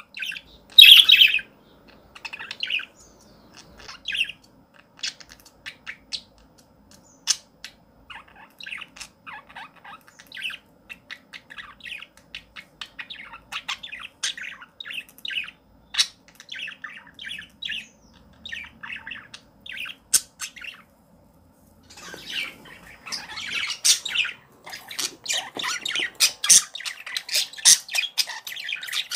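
Birds chirping and squawking in short, irregular calls, loudest about a second in and busiest over the last several seconds.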